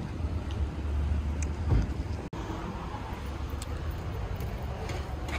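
Low steady outdoor rumble of road traffic with wind on the microphone, broken by a short dropout about two seconds in.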